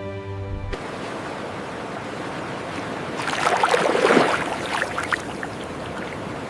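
Background music cuts off about a second in, giving way to a steady rush of water that swells into a louder splashing wash for about two seconds in the middle.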